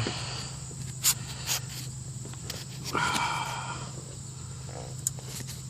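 Light handling noise from hands reaching into a car's engine bay: a few small clicks and knocks, and a short breathy rush about three seconds in, over a steady low hum.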